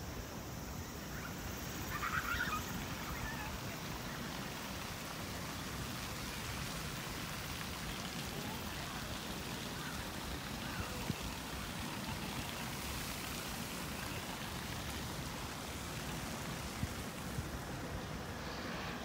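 Steady outdoor ambient hiss in a city park, with a brief chirp about two seconds in.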